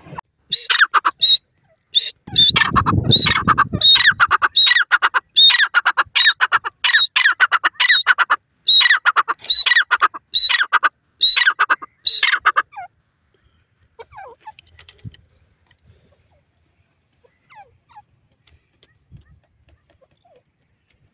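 Grey francolin (teetar) calling: a long run of loud, harsh notes repeated in quick succession, which stops abruptly about 13 seconds in, leaving only faint scattered sounds.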